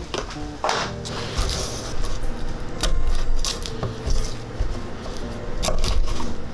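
Kitchen clatter: utensils and dishes clinking and knocking in irregular clicks and thuds, over quiet background music.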